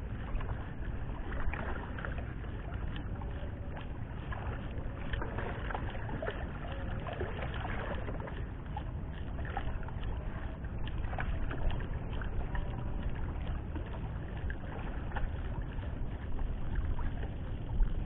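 Steady wind and water noise around a small boat at sea, strongest in the low end, with scattered small clicks and knocks.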